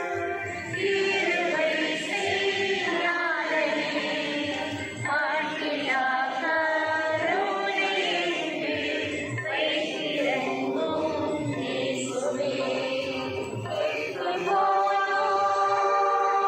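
Voices singing a Tamil Christian devotional hymn in a slow, chant-like melody.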